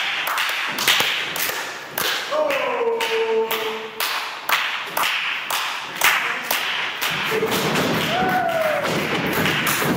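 Irregular thuds and knocks from wrestlers' feet on a wrestling ring's canvas, a few of them sharper and louder. A voice shouts out in a long falling call twice, about two and a half seconds in and again near the end.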